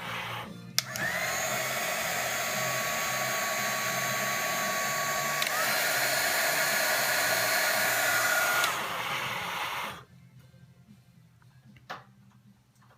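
Hot-air blower running steadily for about nine seconds, starting about a second in and cutting off suddenly, with a thin whine that steps up in pitch about halfway through. Background music plays underneath.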